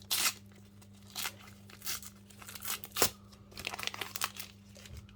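Match Attax trading card pack wrapper being torn open and crinkled by hand: a series of short rustles and crackles, the sharpest just after the start and about three seconds in.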